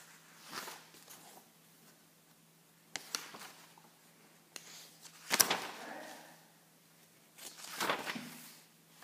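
Scattered handling noises off-camera: a few short rustles and knocks several seconds apart, the loudest about five seconds in, over a faint steady hum.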